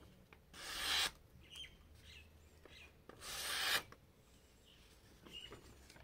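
A folding knife's blade slicing through a sheet of paper twice, each cut a rasping hiss under a second long that grows louder and stops sharply.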